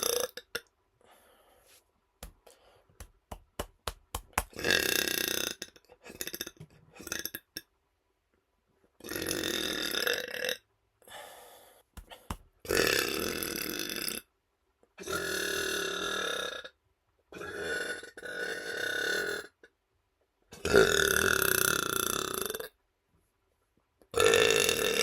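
A man burping over and over: about seven long, drawn-out burps of one to two seconds each, with a quick run of small clicks before the first.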